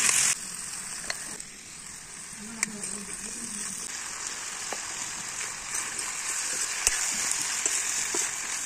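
Sliced potatoes sizzling in oil in an iron kadhai over a wood fire, with a few sharp clicks of a metal spoon against the pan as they are stirred. The sizzle drops a little in level just after the start and then runs on steadily.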